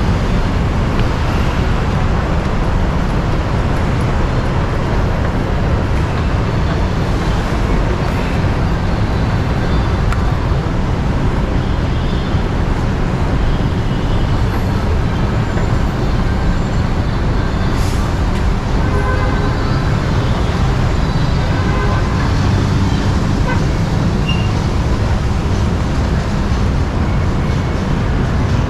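Steady city road traffic: the engines and tyres of passing cars and buses running together in one continuous rumble, with a single sharp tick about eighteen seconds in.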